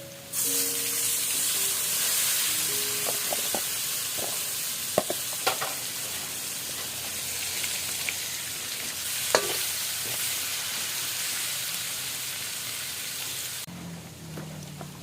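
Food frying in hot oil in a pan, a loud sizzle that starts suddenly and cuts off near the end, with a few sharp knocks of a utensil against the pan.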